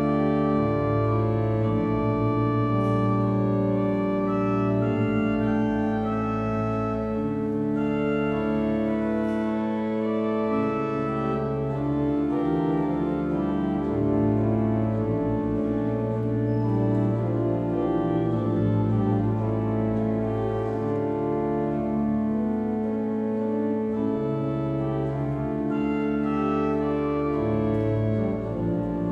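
Cathedral pipe organ playing a slow passage of long-held chords over sustained pedal bass notes, with the harmonies changing every few seconds.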